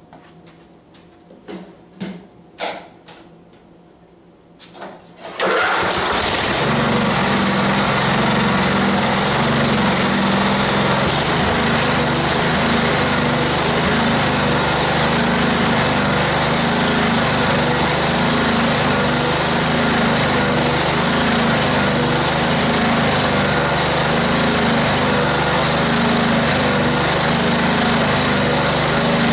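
Kohler Pro 16 hp riding-mower engine starting about five seconds in, after a few light clicks, then running steadily. Its carburetor has been cleaned to cure an RPM surge; the owner finds it better but suspects dirt still in the low idle jet.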